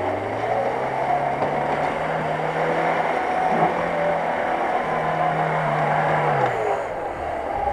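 Lada Niva's four-cylinder engine revving under load as it drives through muddy grass. The pitch climbs in the first moment and holds steady, dips briefly about five seconds in, picks up again, then falls as the engine eases off near the end.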